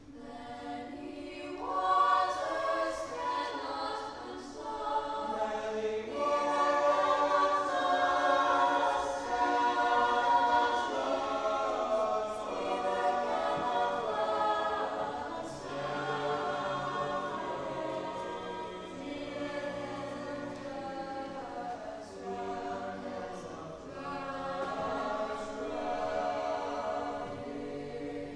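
Mixed-voice chamber choir singing held chords in harmony. It swells up about two seconds in, is fullest through the first half, then sings more softly.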